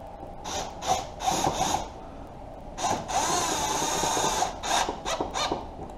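Cordless drill-driver with a T30 Torx bit driving the washer fluid reservoir screws: a few short trigger bursts, then a longer run of about a second and a half in the middle with the motor pitch wavering, then more short bursts near the end.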